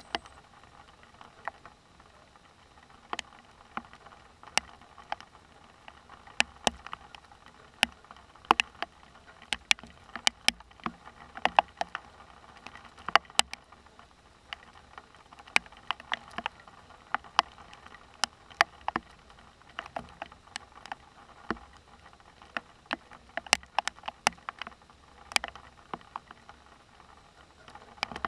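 Scattered raindrops tapping on a hard surface close to the microphone: irregular sharp ticks, a few each second, at the onset of a thunderstorm.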